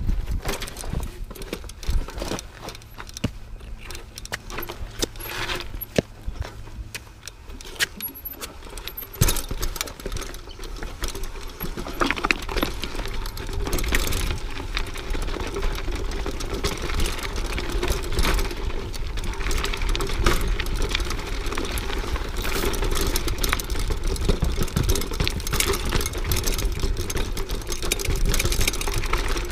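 Mountain bike rattling and clattering over a rocky trail, with sharp knocks as the tires strike rocks. About twelve seconds in the noise turns denser and steadier, a continuous rush of tire and wind noise over the rattle.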